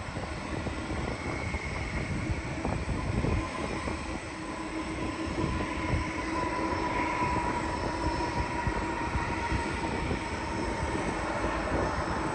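Jet airliner engines on landing approach: a steady rumble with a faint whine that is strongest about halfway through.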